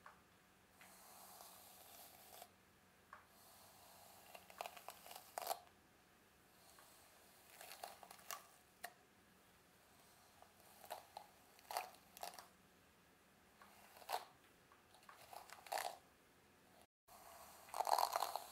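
Close-miked rustling and crackling of long curly hair being scrunched between the fingers and brushed, in irregular strokes with quiet gaps between them, the loudest near the end.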